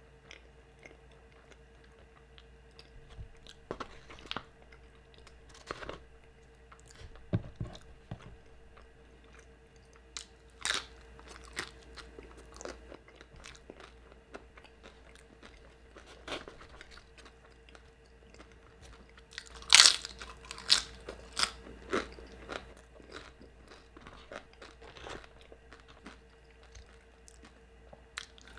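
Close-up crunching and chewing of thin tortilla chips in scattered bites, the loudest crunch about two-thirds of the way through.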